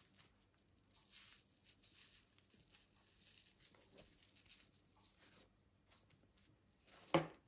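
Faint, soft scraping and tearing as the spongy pore layer is pulled off the underside of a bolete mushroom cap. A short voice sound comes near the end.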